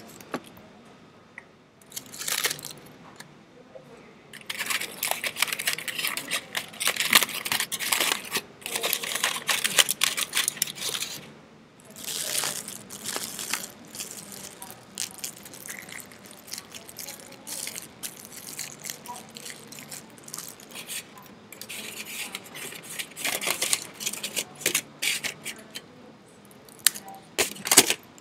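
Puppies playing and wrestling over toys: irregular bursts of scratching, clicking and rattling, busiest through the middle and again near the end.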